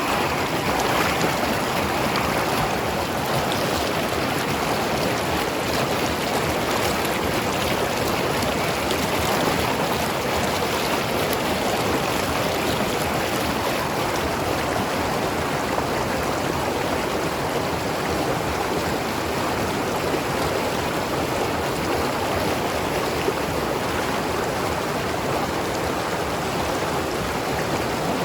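Mountain river flowing and gurgling over rocks, a steady rush of water.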